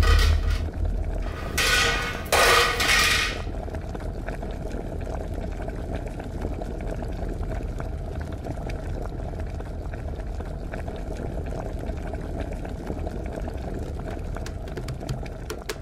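Large aluminium stockpot boiling hard on a gas burner, steam rushing out. There are two loud bursts of hissing in the first three seconds, then a steady boiling rush.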